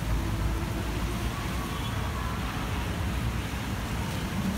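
Tropical-storm wind buffeting the microphone in a steady low rumble, mixed with traffic on the rain-wet road below.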